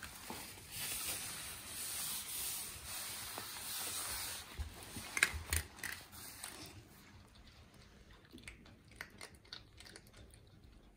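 A rustling hiss lasting about four seconds, then dogs eating dry kibble: a sharp click about five seconds in and scattered small crunches and clicks of chewing after it.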